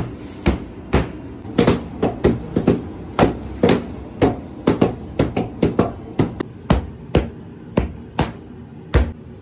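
Several heavy mallets pounding sesame-and-jaggery candy dough on stone slabs, beating it flat. Sharp, irregular knocks from the men striking out of step, about two to three a second and sometimes overlapping, stopping shortly before the end.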